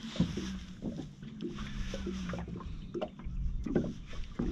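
Choppy lake water slapping against an aluminium fishing boat's hull in the wind, with scattered short knocks. A steady low hum runs underneath and fades out about halfway.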